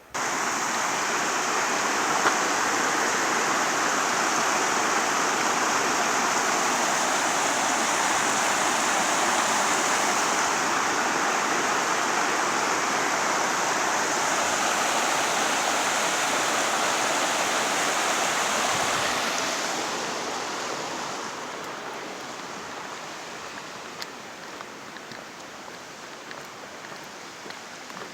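Rushing mountain stream water: a steady, loud rush that begins abruptly and falls to a lower level about two-thirds of the way through.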